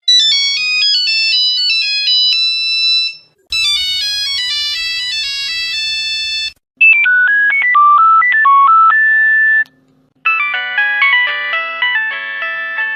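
Four different phone ringtones played one after another, each a short electronic melody of clear beeping notes lasting about three seconds, with brief gaps between them.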